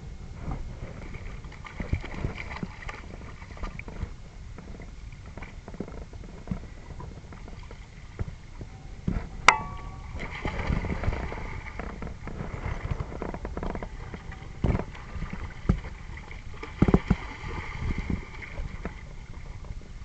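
Water sloshing and splashing as a Labrador retriever wades through a shallow stony stream, over a steady low wind rumble on the microphone. A single sharp click about nine and a half seconds in.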